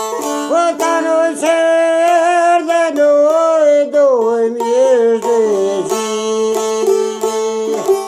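A man singing an Albanian folk song to his own çifteli, a long-necked lute plucked rapidly over a steady drone note. The voice comes in about half a second in and stops about six seconds in, leaving the lute playing alone.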